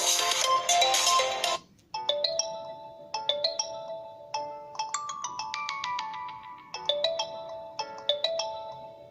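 LG K40S phone ringtone music. A dense, busy passage stops about a second and a half in. After a short gap, a tune of short notes that each fade quickly begins and repeats in phrases.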